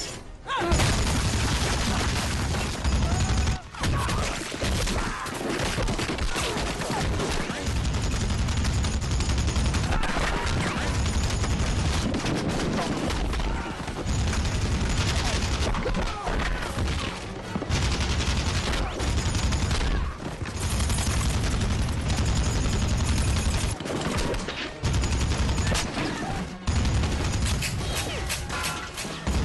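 Machine gun firing long bursts in a film battle soundtrack, broken by short pauses every few seconds.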